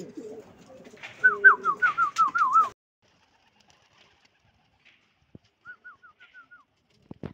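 Domestic pigeons cooing, with a quick run of about seven high chirping notes over them between one and three seconds in. The sound then drops almost to nothing, with a fainter run of chirps near the end.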